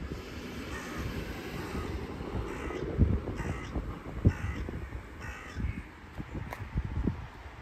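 Crows cawing, a series of about seven harsh calls in the first few seconds, over wind buffeting the microphone with a few louder low thumps.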